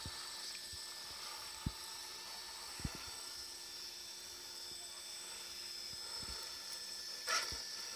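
Electric motor and gears of a scale RC rock crawler whining steadily as it creeps over rocks, with a few light knocks of tyres and chassis on stone and a louder scrape near the end.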